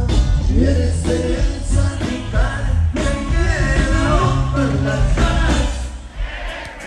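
Norteño band playing live with a singer over a steady bass line; the music drops away near the end.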